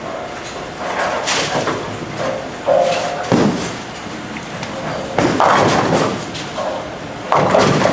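Bowling centre noise: bowling balls rolling on the lanes and pins being struck, with three heavy clattering hits about three, five and seven seconds in over a steady rumble, and voices chattering in the background.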